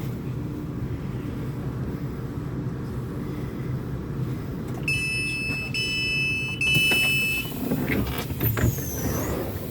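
Train carriage rumbling steadily as the train comes into the station. About five seconds in, a door warning tone beeps three times in a row, each beep long and steady. Clicks and a hiss follow near the end.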